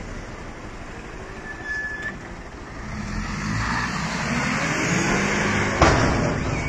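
Box truck's diesel engine revving up as the truck accelerates, climbing in pitch and loudness through the second half, with one sharp bang just before the end.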